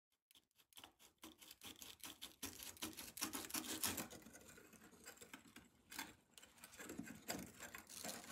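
Dry scratching and rubbing on a hard surface, a dense run of quick clicks that starts about half a second in and swells and eases in spells.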